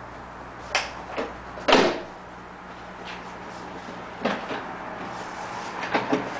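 A few sharp knocks and clunks of a part being worked back into place by hand in a cramped engine bay, the loudest a little under two seconds in and a cluster near the end.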